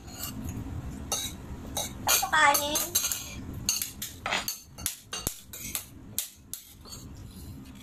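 Spoons clicking and clinking against plates and a serving bowl during a meal, a scatter of short sharp taps. A brief voice sounds a couple of seconds in.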